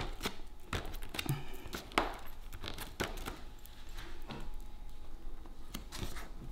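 A piece of corrugated cardboard being dabbed and pressed on a plastic tray and on paper for printing, making a series of short taps, scrapes and rustles.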